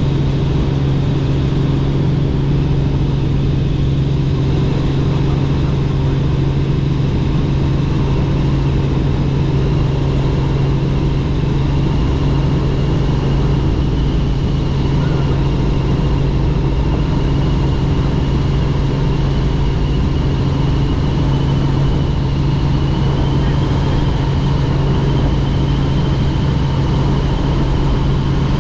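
Helicopter in flight: a steady, loud drone of engine and rotor, with a constant low hum and a faint high whine above it.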